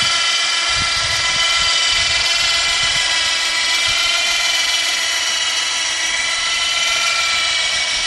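12-volt battery-powered electric motor of a motorized airplane towbar running steadily under load as it moves a light aircraft on its nose wheel: a high, even whine that holds its pitch.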